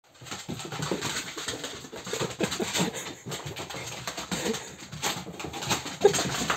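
A dachshund scrabbling after a laser dot on a laminate floor, its claws clicking and skittering, with short low vocal sounds from the dog now and then.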